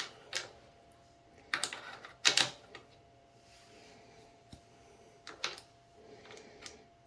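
Sharp metallic clicks and clacks from a quick-detach riser mount's lever clamp being worked on a rifle rail while its clamp tension is adjusted by trial and error. There are a handful of separate clicks, the loudest about two seconds in.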